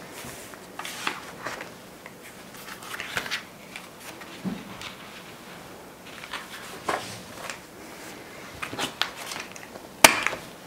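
Paper pages and inserts of a ring-bound planner rustling and sliding as they are handled, in short scattered bursts. Near the end, one sharp click as the planner's metal rings snap.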